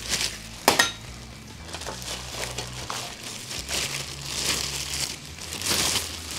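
White plastic wrapping rustling and crinkling as it is pulled off a perforated stainless-steel fuel pan. There are two sharp, loud crinkles within the first second and further rustling swells near the end.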